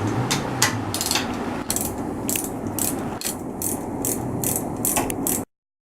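Hand ratchet wrench being worked, its pawl clicking about three to four times a second over a steady workshop background, cutting off abruptly near the end.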